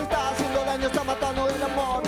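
Rock band music with a steady beat and pitched melodic lines, no words sung.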